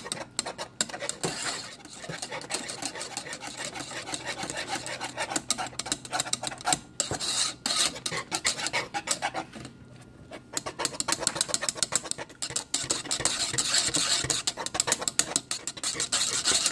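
Wire whisk stirring a thick, thickening starch-and-agar vegan cheese mixture in a nonstick pan, a fast run of scraping, rasping strokes against the pan with a short pause about ten seconds in.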